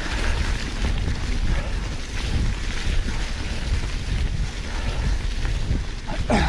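Wind buffeting the microphone over the rumble and crackle of a Canyon Lux Trail full-suspension mountain bike's tyres rolling over dry leaf litter on a forest track. A brief falling squeak comes near the end.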